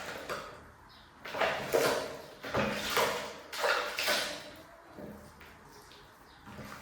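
Water splashing and pouring during a kitten's bath, in three short washes of about a second each.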